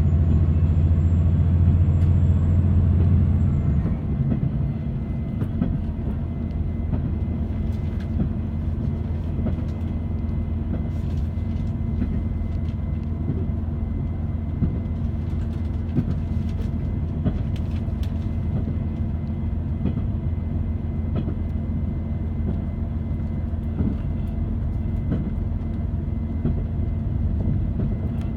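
Train running, heard from inside the carriage: a steady low rumble of engine and wheels on rail, louder for the first few seconds, then dropping back about four seconds in and holding steady, with scattered sharp clicks and knocks.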